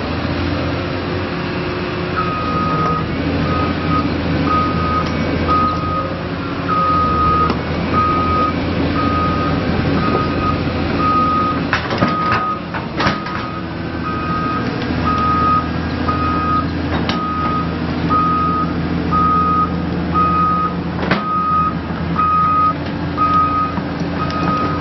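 Caterpillar 320D L RR hydraulic excavator's diesel engine running steadily, with its travel alarm beeping at about one beep a second from a couple of seconds in, the sign that the machine is tracking. A few sharp metallic clanks come around the middle and near the end.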